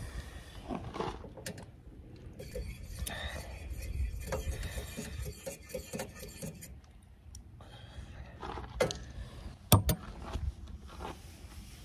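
Scattered light clicks and knocks of things being handled, with one sharp knock about ten seconds in.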